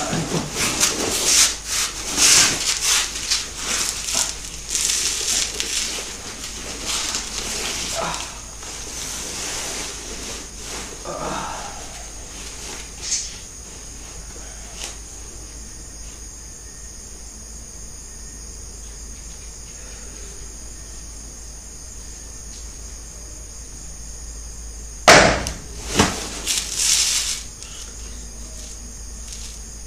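Fabric rustling and creaking of a woven hammock as a person climbs in and settles, over a steady high chirring of night insects. Near the end come two sharp knocks.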